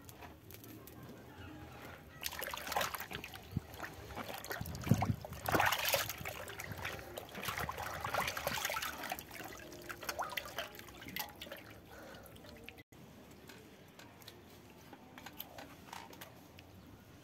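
Water sloshing and splashing in a steel basin as hands rub and wash a whole chicken, irregular and loudest for about ten seconds, then quieter handling after a sudden break near the end.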